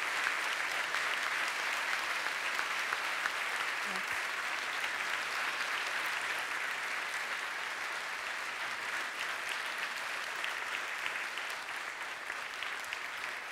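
Theatre audience applauding steadily, slowly dying down toward the end.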